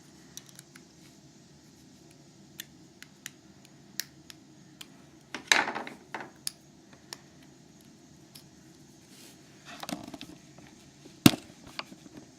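Small metal clicks and taps of a Euro cylinder lock and hand tools being handled during disassembly, with a louder burst of scraping handling about halfway and a single sharp click near the end.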